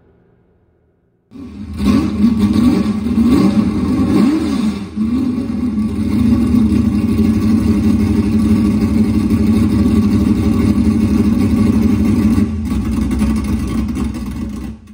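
Engine revving: it starts suddenly, swings up and down in pitch several times, then holds at a steady high speed and cuts off near the end.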